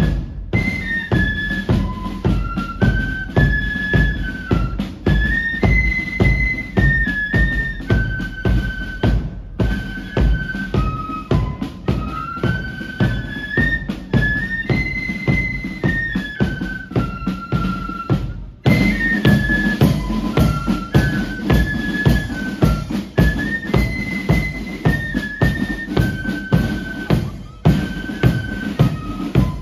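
Marching flute band playing a repeating tune on flutes over a steady drumbeat, the melody breaking off briefly twice between phrases.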